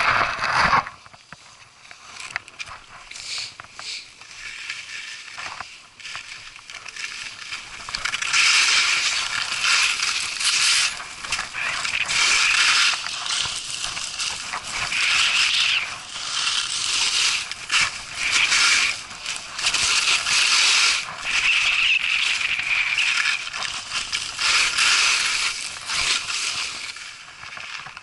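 Alpine skis carving over groomed snow: a hissing scrape of the edges that swells and fades with each turn, softer for the first several seconds, then stronger in repeated surges.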